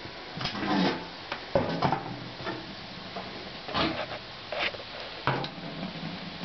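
Irregular knocks, rubs and scrapes of objects being handled and moved about, with a few sharper clatters among them.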